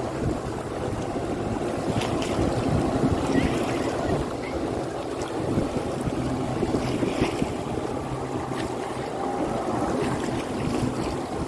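Steady wind buffeting the microphone over the wash of sea water.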